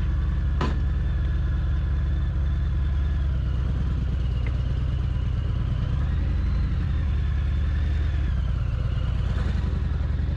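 Harley-Davidson Fat Bob's 114 cubic-inch V-twin running as the bike moves off at low speed, the revs rising and easing a couple of times. A single sharp click comes about half a second in.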